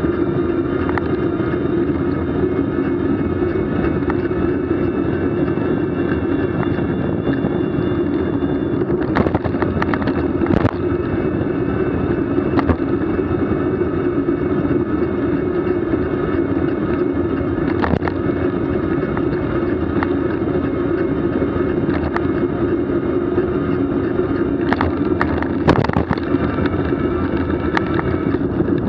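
Steady travel noise from a moving vehicle: a constant hum that holds one pitch, broken by a few short sharp knocks, most of them in the middle and near the end.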